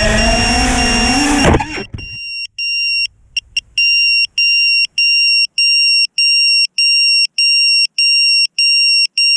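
A small FPV quadcopter's motors (iFlight Xing 1408 3600kv) whine with a wavering pitch, then cut off abruptly about a second and a half in. After a few clicks, the quad's onboard buzzer starts beeping steadily, a high tone about twice a second.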